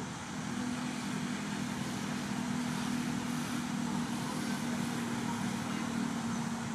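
A steady engine hum: a low, even drone over a background hiss, setting in about half a second in.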